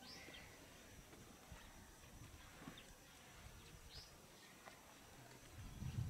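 Near silence outdoors, broken by a few faint, short, falling bird chirps, one right at the start and another about four seconds in. A low rumble comes up near the end.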